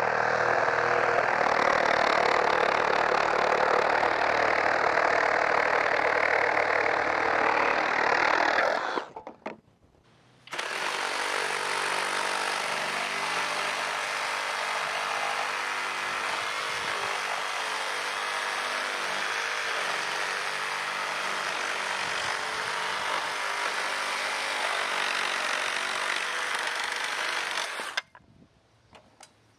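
FLEX 24V cordless reciprocating saw running and cutting through a stack of wooden boards. It cuts off about nine seconds in, starts again a second and a half later for a second long cut, and stops shortly before the end.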